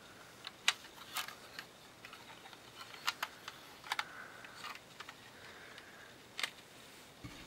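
Hard plastic Lego parts of a brick-built toy revolver clicking and clacking as it is handled and its mechanism is worked: about a dozen irregular sharp clicks, the loudest about a second in.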